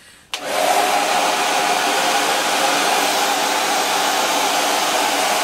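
Hair dryer switched on about a third of a second in, then running steadily with a loud, even rush of air. It is blowing through a hose into a soft bonnet dryer attachment and inflating it.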